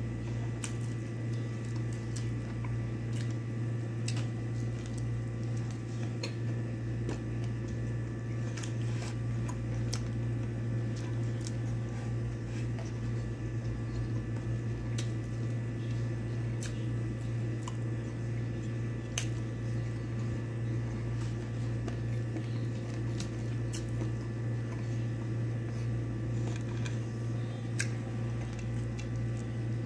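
Close-up chewing and wet smacking of a person eating rice and chicken with her hand, with scattered small clicks, over a steady low hum.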